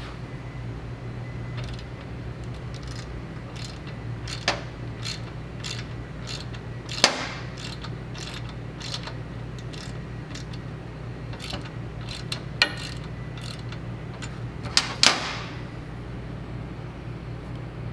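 Scattered metal clinks and knocks of tools and bolts being handled while a crash bar is fitted to a motorcycle frame, a handful of sharp strikes over a steady low hum.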